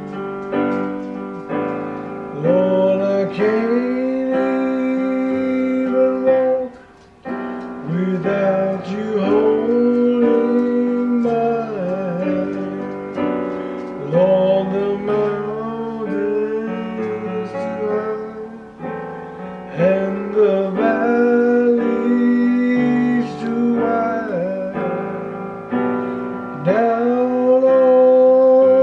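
A man singing a slow gospel song in long held phrases, accompanying himself on an electronic keyboard with a piano sound.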